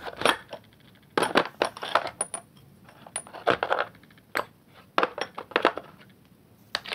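Steel sockets and tools of a socket wrench set clinking against each other and knocking into the plastic case as they are pressed back into their slots, in irregular clusters of sharp clicks, a few with a brief metallic ring.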